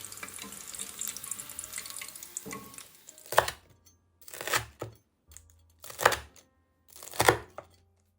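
A steady hiss, then four loud, crisp crunches about a second apart, each followed by silence: the crackling crust of deep-fried king oyster mushroom pieces being cut or bitten.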